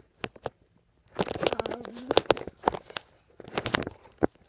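Handling noise from a phone held up close: rustling, crackling and knocking as it rubs against hair and fur, with a short voice-like pitched sound about a second in.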